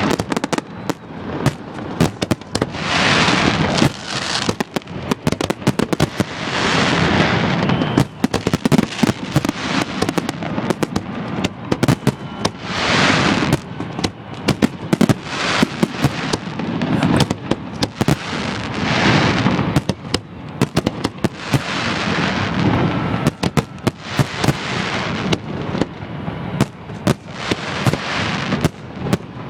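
Fireworks display exploding close overhead: a dense, continuous run of sharp bangs, with louder swells every few seconds.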